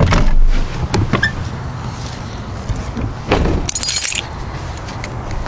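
Pickup truck's 350 V8 idling with a low rumble, over which come clunks at the start, about a second in and around three seconds in, and a brief metallic jangle a little after that.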